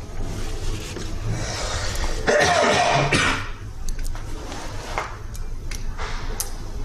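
A person coughs and clears their throat about two seconds in, then a few light, sharp clicks as small parts are handled, over a low steady hum.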